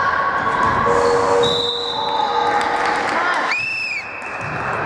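Basketball game in a gym: the ball dribbling on the court amid players' voices. About three and a half seconds in, a long, steady referee's whistle blast begins.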